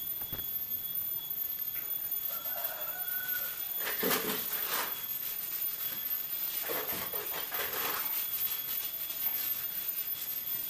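Foam sponge rubbing black wall paint onto a concrete pillar: two longer scraping strokes about halfway through, with fainter rubbing around them.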